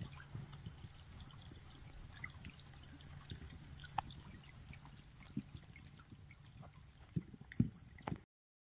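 Faint trickling and dripping of open water along the shore-side edge of lake ice, with scattered small drips. A few louder knocks come near the end, and then the sound cuts off.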